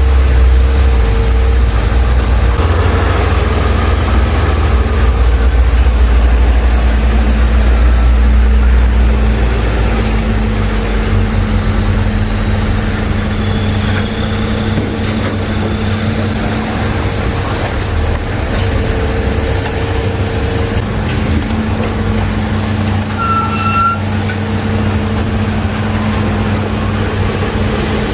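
Heavy diesel machinery running steadily, louder for the first ten seconds or so and then settling to a lower, even running sound. A short high-pitched beep sounds about two-thirds of the way through.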